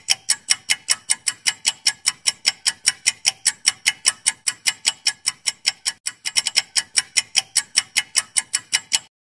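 Clock-ticking timer sound effect: fast, even ticks about five to six a second, briefly uneven around six seconds in, stopping just before the end.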